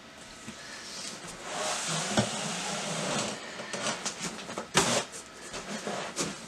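Rustling and crinkling of a fabric carry bag and plastic wrap as a computer case is pulled up out of its cardboard box, with scattered small clicks and one sharp knock about five seconds in.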